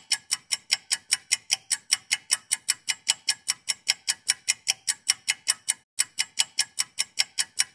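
Even, clock-like ticking, about five identical ticks a second, with no room sound beneath it: a ticking effect laid over the footage in editing. It breaks off for a moment of silence about six seconds in, then goes on.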